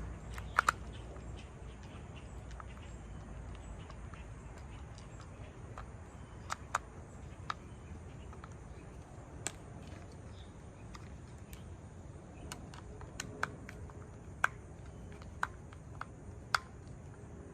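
Scattered sharp clicks and taps of a screwdriver and small metal parts as the centre screw of a lawn mower's recoil starter is tightened, irregularly spaced, over a low steady hum.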